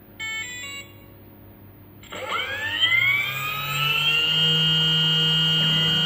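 2M2 Magic Tank key cutting machine's cutter spindle motor spinning up: a whine rises in pitch about two seconds in and settles into a steady high whine. A short beep comes just before, near the start.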